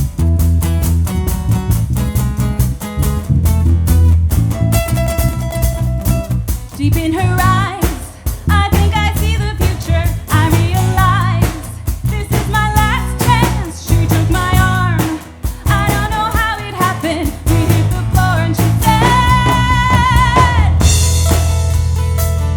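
Upbeat pop-rock song with a drum kit, bass and guitar, and a sung vocal melody through the middle of the stretch.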